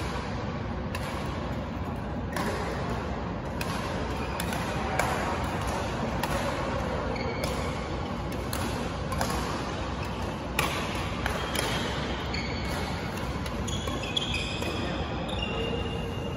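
Badminton rackets striking a shuttlecock: sharp hits at irregular intervals over the steady noise of a large sports hall. Short high squeaks near the end from shoes on the court floor.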